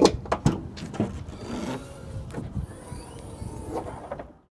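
Rear glass hatch of a car being opened: a few latch clicks and knocks, then a steady hiss for a couple of seconds that cuts off suddenly near the end.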